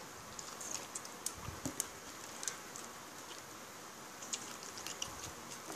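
Eating sounds while chewing grilled chicken: scattered wet mouth clicks and smacks, irregular and close, over a steady hiss.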